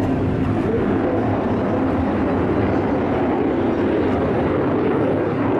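Boeing F/A-18F Super Hornet's twin General Electric F414 turbofans running, a loud, steady jet noise during a flying display.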